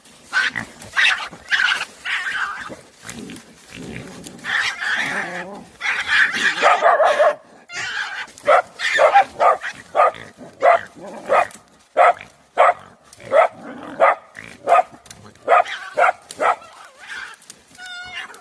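Dogs barking and snarling as they fight a badger: harsh, ragged growling and barking in the first half, then a steady run of sharp barks about twice a second.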